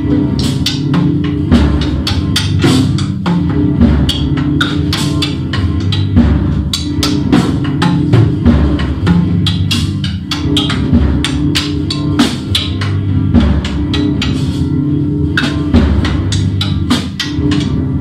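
Instrumental music led by drums and percussion, with a dense run of struck beats over steady low notes.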